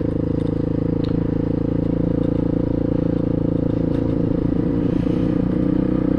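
Suzuki DR350 SE's single-cylinder four-stroke engine running at a steady speed as the motorcycle is ridden.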